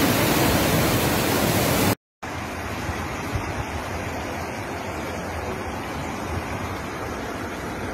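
Muddy floodwater rushing in a loud, steady torrent. After a short cut about two seconds in, a quieter, even rush of floodwater flowing along a street.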